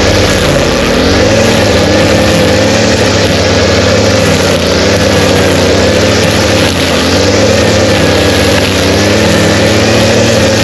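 Kubota tractor's diesel engine running steadily, its pitch rising and falling a little as the load changes.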